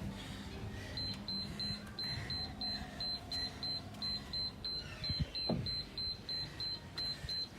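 Electronic interval timer beeping: a rapid run of short, high, single-pitched beeps, about three a second, starting about a second in, the alarm that marks the end of a timed interval.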